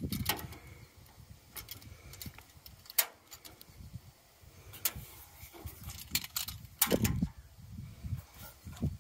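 Scattered clicks and taps of a steel tape measure and hands working a stencil against a sheet-metal truck door, the sharpest about three seconds in and around seven seconds, over an uneven low rumble.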